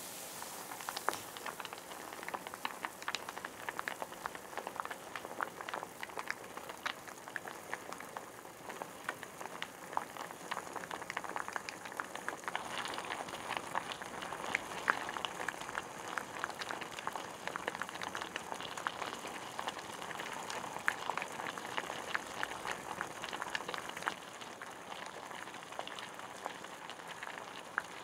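A pot of liquid at a steady boil, with sliced lotus root simmering in it: continuous bubbling made of many small pops and crackles.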